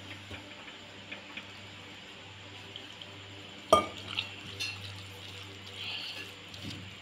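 Wet gram-flour and onion pakoda batter being mixed by hand in a steel bowl, with small scattered clinks of metal and one sharp, ringing metal clink about halfway through.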